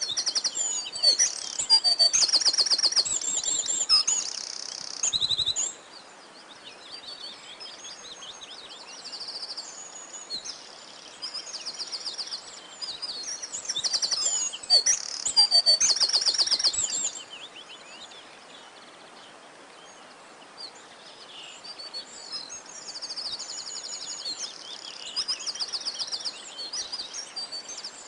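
Songbirds singing: a busy chorus of rapid, high trills and chirps, with loud bouts near the start and in the middle and a softer run of trills later on.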